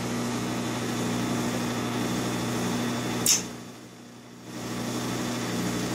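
Frigidaire gas dryer's drum motor and blower running with a steady hum. A sharp click comes a little over three seconds in, and the sound drops away for about a second before the hum comes back.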